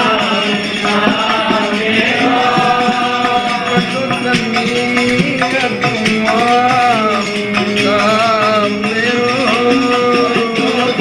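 Sikh devotional hymn (shabad) sung over instrumental accompaniment, a wavering melodic voice line over steady held tones.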